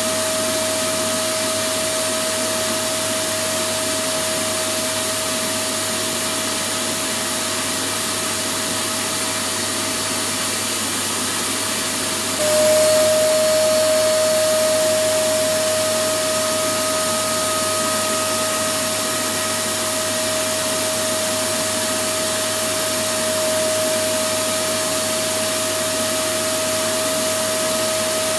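Electric vacuum cleaner running steadily: a continuous rush of air with a steady motor whine. About twelve seconds in it briefly gets louder and the whine drops slightly in pitch.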